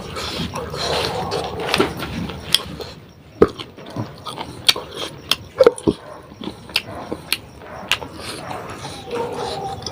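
Close-up eating sounds of a person chewing spicy beef curry: irregular sharp mouth clicks and smacks, about one or two a second, with soft chewing between them.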